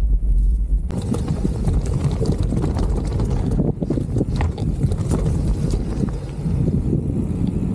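Full-suspension mountain bike clattering over a rough dirt trail: tyre roll and a rapid run of small knocks and rattles from the bike, with wind rumbling on the camera microphone. About a second in, the low rumble gives way to a brighter, busier clatter.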